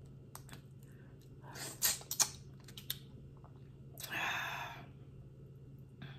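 Close-up eating sounds from a crawfish boil: sharp cracks and clicks of crawfish shells being broken and peeled, with chewing, in two short bursts about two seconds and four seconds in.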